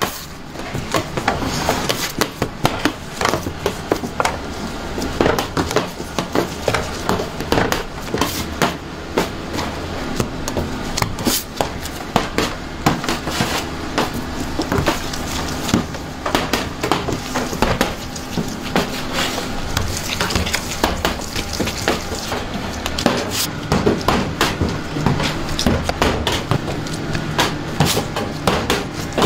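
Dough being worked by hand on a stainless-steel table: a metal scraper knocking against the steel as it cuts the dough, and pieces slapped down and rounded, in an irregular run of knocks and taps over a steady low hum.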